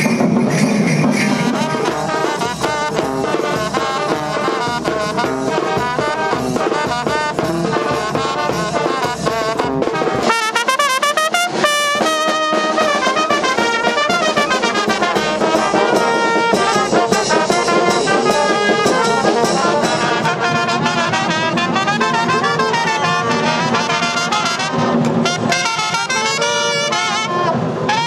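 Brass band music, with trumpets playing the melody. About ten seconds in, the music changes abruptly to a different passage of clearer, held trumpet notes.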